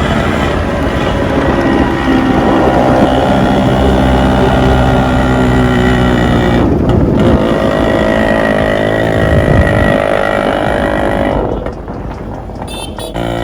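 Modified Yamaha RX two-stroke single-cylinder motorcycle engine running loud, its pitch dipping and rising a couple of times as it is revved. The sound drops off about two seconds before the end.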